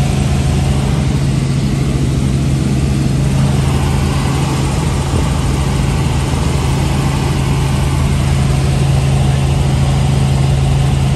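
Helicopter cabin noise: the rotor and engine drone steadily, a loud, even low hum with a rushing noise over it, heard from inside the cabin.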